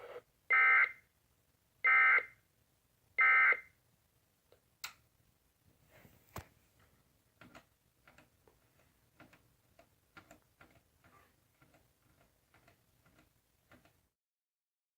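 Emergency Alert System end-of-message (EOM) SAME data tones: three short, identical bursts of buzzy digital warble, about 1.3 seconds apart, signalling the end of the alert. Faint scattered clicks follow.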